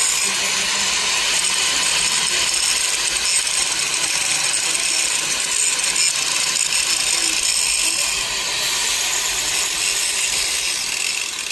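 Electric arc welding: a steady hiss of the arc that runs without a break.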